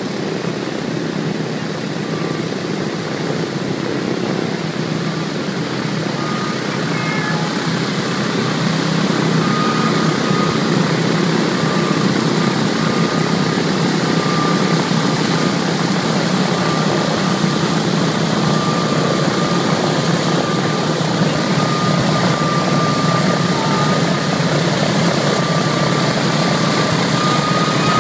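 Boeing B-17 Flying Fortress's four Wright R-1820 Cyclone nine-cylinder radial engines running at taxi power as the bomber taxis up close, growing louder about eight seconds in. A thin steady whine sits above the engine noise.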